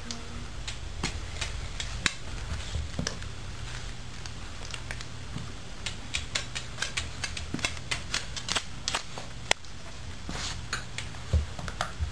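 German shepherd mix puppy's claws clicking and paws tapping on a tile floor and the mirror glass as it scuffles with its reflection: a run of irregular sharp clicks, thickest in the middle, over a steady low hum.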